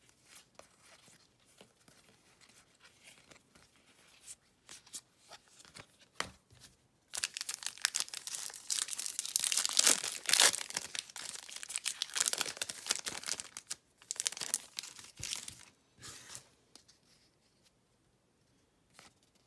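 Light card-handling ticks, then a few seconds of loud tearing and crinkling from a trading-card pack wrapper being ripped open, which dies away after a final rustle.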